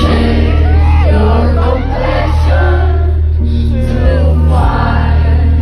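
Live concert music: a voice singing into a microphone over a deep, sustained bass. The lowest bass drops out briefly a little after four seconds in.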